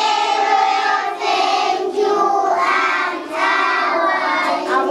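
A group of young children singing a song together in unison, with long held notes.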